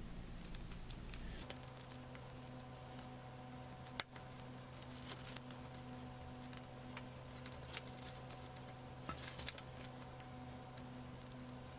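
Faint scratching and ticking of a razor craft knife cutting thin black trash-bag plastic around latex-coated wing bones. There is a sharp click about four seconds in and a louder stretch of scraping near the end. A steady low hum sets in about a second in.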